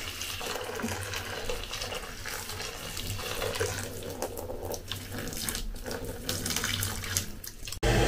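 Hot water poured in a steady stream from a stovetop kettle into a plastic basin of soaking tablecloth and bleach powder, splashing as it fills. It cuts off suddenly near the end.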